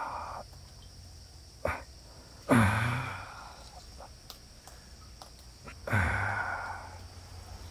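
A man's voice letting out two drawn-out exclamations of effort, about two and a half and six seconds in, each falling in pitch, while he strains against a hooked fish on the rod. A single sharp click comes between them.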